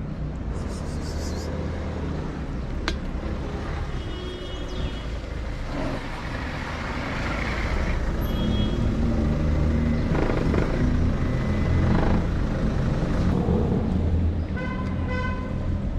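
Road traffic: a vehicle's engine rumble that grows louder about halfway through and eases near the end, with a few brief high tones over it.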